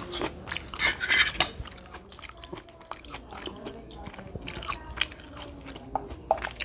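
Close-up mouth sounds of someone eating spaghetti and meatballs: wet chewing and smacking with scattered small clicks. There is a louder noisy burst about a second in.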